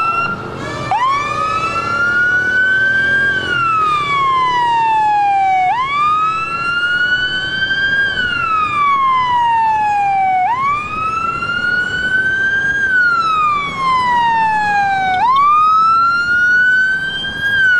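Police siren wailing in a slow rise and fall, about one cycle every five seconds. It breaks off and restarts just under a second in.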